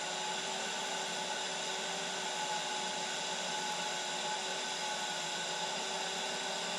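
TIG arc powered by a stick welder set at 80 amps, burning steadily with an even hiss and a faint steady hum under it.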